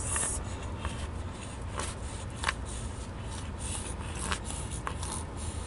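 Low steady rumble inside a car cabin, with a few faint clicks and rustles from handling.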